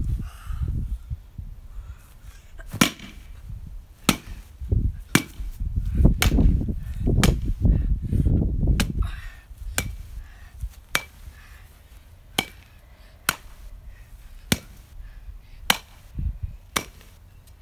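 Baseball bat repeatedly smashing a carved pumpkin: more than a dozen sharp whacks at uneven intervals, roughly one a second, as the pumpkin breaks apart.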